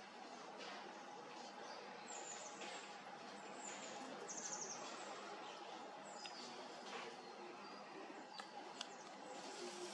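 Faint outdoor ambience: scattered short, high bird chirps and calls over a steady background hiss with a faint hum. Two sharp ticks come near the end.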